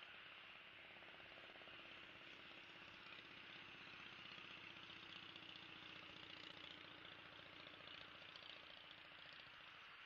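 A faint engine running steadily, over a steady high hiss of outdoor background.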